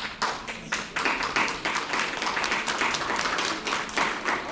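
Hands clapping in applause: many quick, uneven claps.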